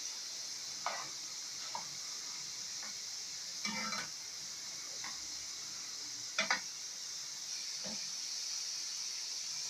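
Potato fries sizzling steadily in hot oil, with a utensil scraping and knocking against the pan several times as they are stirred. The fries are near the end of frying, just starting to brown.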